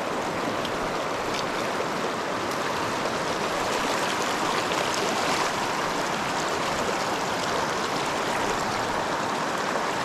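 Steady rush of flowing water, an even hiss with no let-up.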